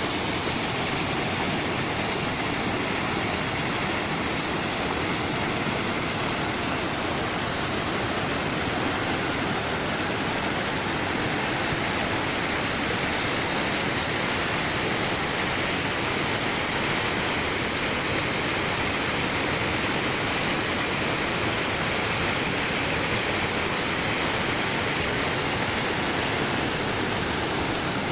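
Waterfall rushing: a steady, even roar of falling water with no change throughout.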